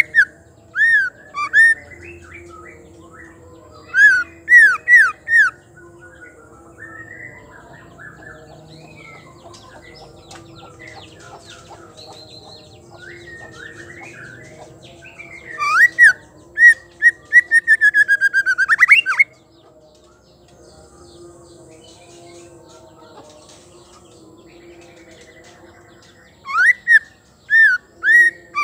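Female white-rumped shama calling: loud, sharply rising whistled notes in short groups of three or four. A long rapid run of rising notes comes about halfway through, with soft twittering between the groups.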